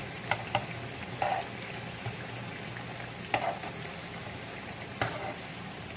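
Bread pieces shallow-frying in hot oil in a frying pan: a steady sizzle, with a few sharp clicks of a utensil against the pan as the pieces are turned.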